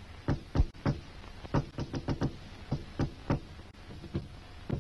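Repeated knocking on a wooden door: sharp, uneven raps at about three a second, some falling in quick pairs.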